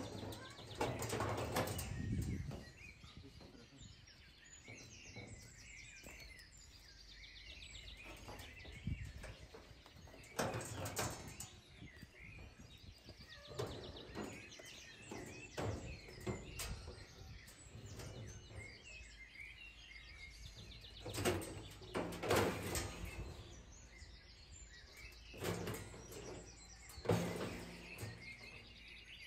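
Small birds chirping over outdoor background noise, with scattered knocks and thumps every few seconds.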